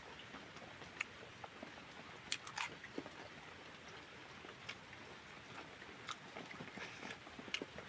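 Close-miked chewing of a mouthful of rice and roast pork, with scattered small wet clicks, the loudest few coming about two and a half seconds in.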